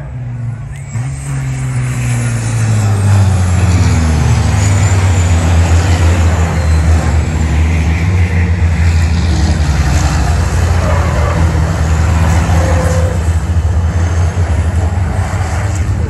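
Racing trucks' turbo-diesel engines under hard power, growing louder over the first few seconds, then staying loud and steady. Several engine notes slide in pitch during the first few seconds.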